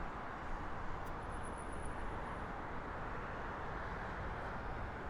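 Steady outdoor background noise: an even low rumble and hiss with no distinct event, and a faint thin high tone for about a second early on.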